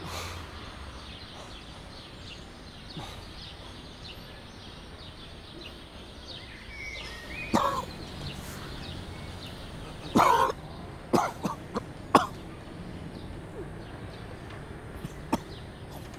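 Quiet outdoor park ambience with faint bird chirps, broken by a few short, harsh sounds like coughs, the loudest a cluster about ten to twelve seconds in and a single one near the end.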